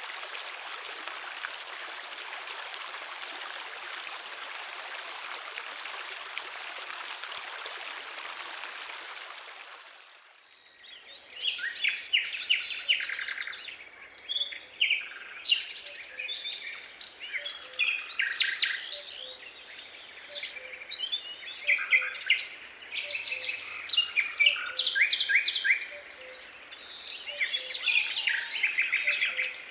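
Steady rush of running water that fades out about ten seconds in, followed by songbirds chirping and trilling, several short phrases overlapping and coming and going.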